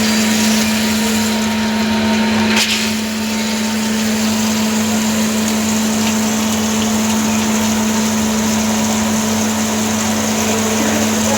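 CNC lathe running steadily while turning D2 tool steel, a constant machine hum with one short sharp click about two and a half seconds in.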